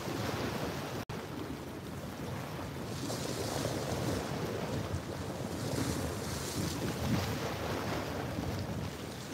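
Small waves washing and splashing against the rocks of a rocky shoreline, with wind buffeting the microphone as a low rumble. The sound cuts out for an instant about a second in.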